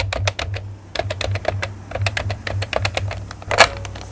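Rapid, uneven typing: key clicks several times a second over a low hum, with one louder clack about three and a half seconds in.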